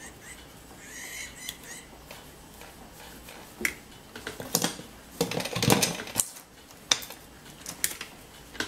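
Hand tools and electrical wire being handled on a tiled tabletop: scattered clicks and light clatter of pliers and wire, with a louder run of clatter and rustling about five to six seconds in.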